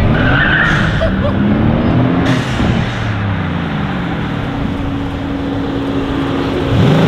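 Brabus-tuned twin-turbo V8 of a Mercedes-AMG C63 S Estate, running through the Brabus exhaust: the revs rise for about two seconds as it pulls away, drop as it eases off, then hold a steady drone as it rolls closer, and climb sharply again right at the end.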